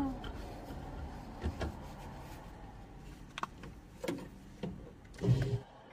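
Inside a stopped car: a low, steady rumble with a few scattered clicks and knocks, the loudest a thump near the end.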